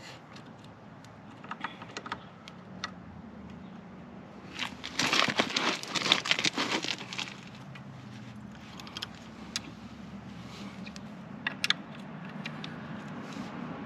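Metal floorboard mounting hardware clicking and jangling as it is worked by hand into place, with a louder stretch of rattling and scraping about five to seven seconds in and scattered single clicks.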